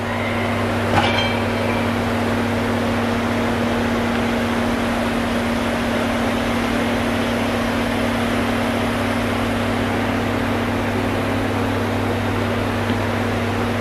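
Steady low hum over an even hiss, the constant background drone of a large indoor gym hall, with a single short metallic clink about a second in.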